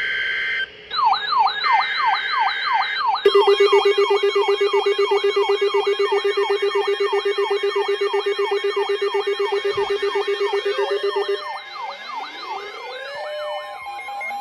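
Electronic siren sounding in a fast up-and-down yelp, after a second of short steady electronic tones. About three seconds in a rapidly pulsing buzzer tone joins it; the buzzer stops abruptly late on, leaving rising siren sweeps.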